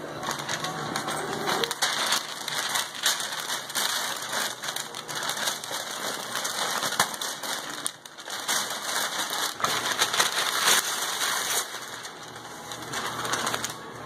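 Gift-wrapping paper crinkling and tearing in quick, irregular rustles as a small dog rips into a large wrapped present with its mouth and paws, with a brief lull about eight seconds in.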